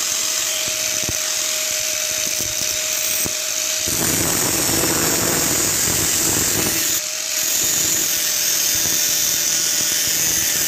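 Electric angle grinder with a cutting disc cutting a steel spoon. It runs with a steady whine; about four seconds in the whine gives way to a rougher grinding noise as the disc bites into the metal, and about seven seconds in the whine returns as the cut goes on.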